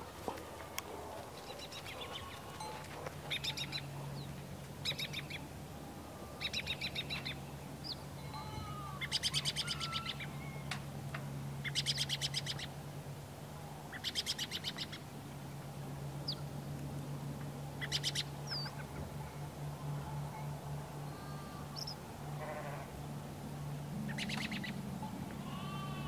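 Sparrows chirping: short bursts of quick, repeated chirps every couple of seconds, with a steady low hum underneath.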